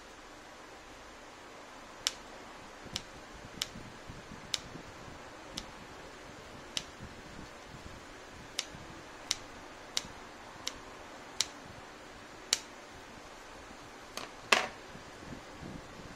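Kitchen scissors snipping through thin slices of dried pork jerky, the blades closing with a sharp click about a dozen times at an uneven pace. A louder clack comes near the end.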